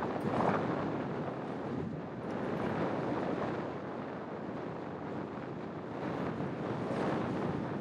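Wind rushing over the microphone of a camera mounted on the outside of a moving car, mixed with road noise. The rush swells briefly about half a second in and again about a second before the end.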